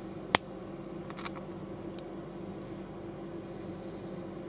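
Plastic building bricks snapping together: one sharp click about a third of a second in, then a few fainter clicks and taps as pieces are handled, over a steady low hum.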